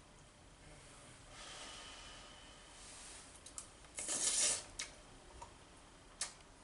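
A person eating curry and rice with a spoon from a plate. A faint scrape of the spoon scooping across the plate, then a short slurp as a spoonful goes into the mouth about four seconds in, with a few small clicks of the spoon against plate or teeth.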